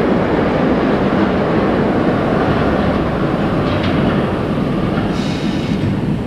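R62A subway train pulling out of the station into the tunnel: a steady loud rumble of wheels on rails that eases slightly near the end as it recedes, with brief higher-pitched screeches about four seconds in and again about five seconds in.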